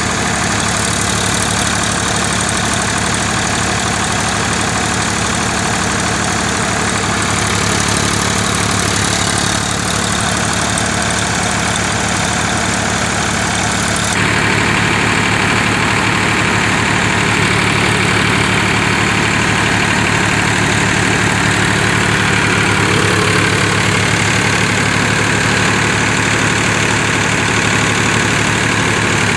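Powertrac 439 Plus tractor's three-cylinder diesel engine running steadily under load while driving a wheat thresher, with a dense rushing noise from the threshing over the engine. About halfway through, the sound shifts and becomes a little louder.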